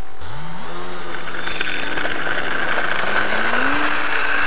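Brushless electric motor and propeller of an RC model Cessna spooling up. Its whine rises quickly in pitch just after the start, holds steady, then climbs higher again a little after three seconds as the throttle is opened for takeoff.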